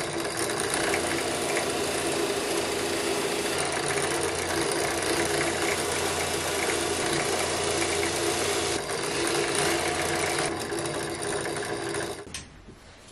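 Drill press spinning a felt polishing wheel while a small titanium knife-handle spacer is held against it: a steady motor whir with a polishing hiss, which stops about twelve seconds in.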